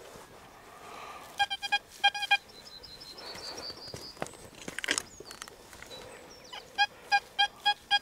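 Metal detector signal beeps: short, even electronic tones in quick groups of two or three in the first half, then a run of five evenly spaced beeps near the end, signalling metal close to the coil or probe. A brief scrape of digging comes about five seconds in.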